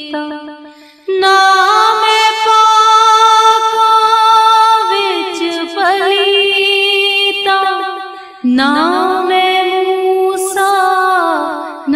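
A woman singing a Punjabi Sufi kalam in long, held notes with wavering ornaments. The song falls into phrases, with short breaks about a second in and again about two-thirds of the way through.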